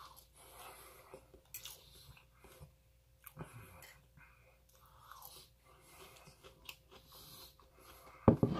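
Close-miked chewing of a mouthful of rice and shrimp-stuffed tofu, with soft wet mouth sounds and small clicks. A louder knock comes near the end.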